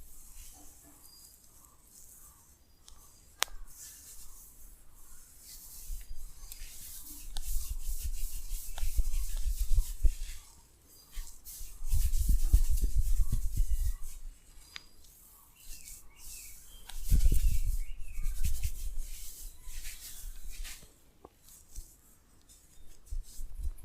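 Hands rubbing skin and hair close to the microphone during a head and face massage, in three louder bouts. Faint bird chirps can be heard between them.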